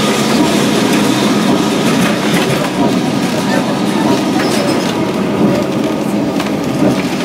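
Old Lisbon tram 28 running on its rails, heard from inside the car: a steady running noise with scattered clicks and knocks.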